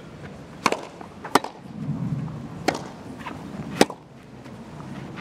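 Tennis balls struck by rackets four times in a rally: the serve about half a second in, the return under a second later, then two more shots, each a short sharp pop.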